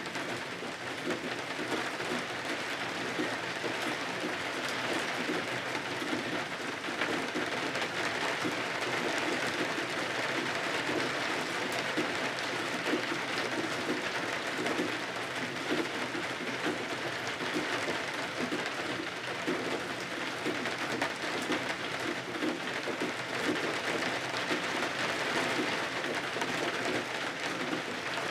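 Steady rain, an even hiss of many drops that keeps up without pause.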